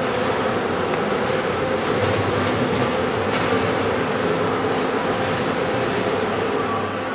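Steady industrial running noise from a robotic welding station, dipping a little in level near the end.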